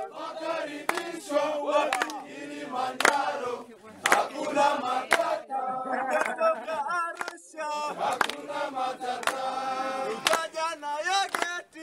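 A crowd of men singing and chanting together, many voices overlapping, with sharp claps scattered through.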